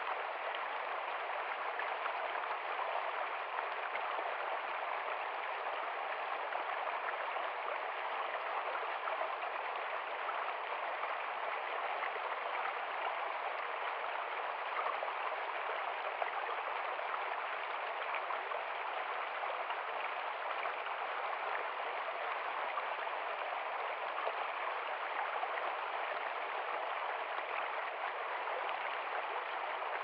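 Shallow stream rushing and splashing over rocks in a steady, even flow.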